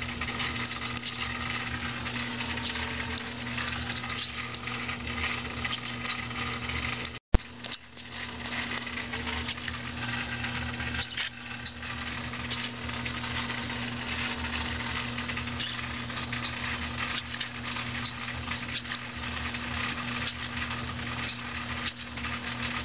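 Steady electrical buzz and hum with faint crackling ticks from the powered-on spider robot's hobby servos holding their legs in position. A single sharp click about seven seconds in.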